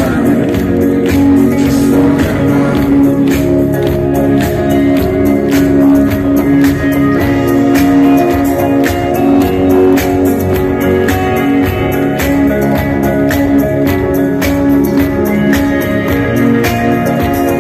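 A live band plays a mostly instrumental passage with a steady beat, guitar among the instruments, heard loud from within the crowd.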